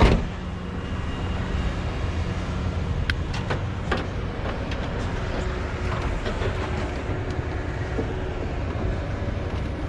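Steady low rumble of an engine running, with a few sharp clicks and knocks about three and four seconds in.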